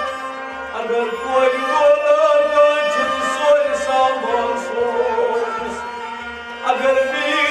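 Kashmiri Sufi song: a man singing long, wavering lines over a harmonium, with string instruments and a soft, steady beat on a clay pot drum (tumbaknari).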